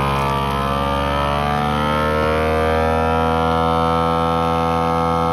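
FoodSaver vacuum sealer's pump running, drawing the air out of the bag with a steady whine. Its pitch climbs a little over the first two seconds and then holds as the bag pulls tight around the food.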